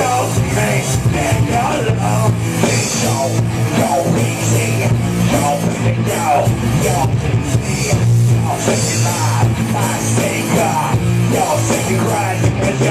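Live hard rock band jamming loudly with guitar and drum kit, a singer freestyling vocals over the music.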